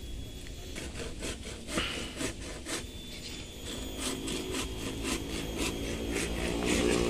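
Small hand saw cutting through a green avocado branch, with short rasping strokes about two to three a second. An engine hum grows louder near the end.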